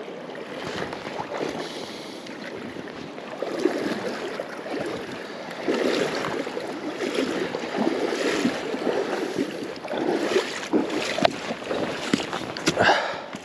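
Rushing river water, a steady wash that swells unevenly every couple of seconds.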